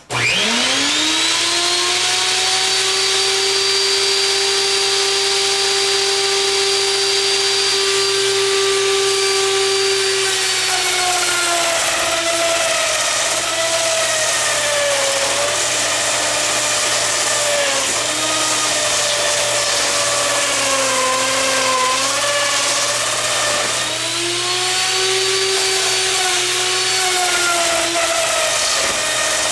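Router motor starting up with a quickly rising whine to full speed, then running steady. After about ten seconds its pitch sags and wavers as the cutter bites into the spinning wooden blank on the router lathe. It picks up speed again briefly near the end before bogging down once more, over a steady low hum.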